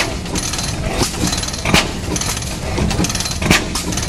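Reid two-stroke oil field engine running slowly, chugging with a sharp beat about every two seconds and lighter mechanical knocks between.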